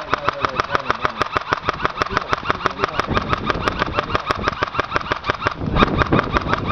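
Airsoft electric gun firing on full auto: a long, even stream of sharp clicks at about eight shots a second, getting a little louder near the end.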